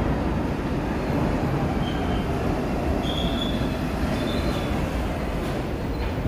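R62 subway train pulling into an underground station and slowing along the platform, with a steady heavy rumble from its wheels and motors. Short high squeals come about two, three and four and a half seconds in as it brakes.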